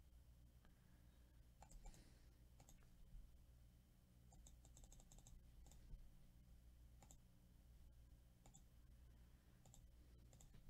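Near silence with faint, scattered computer-mouse clicks, including a quick run of clicks about four and a half seconds in, over a faint low hum.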